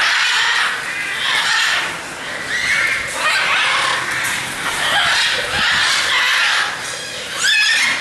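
A flock of macaws squawking: loud, harsh calls coming every second or so, one bird over another.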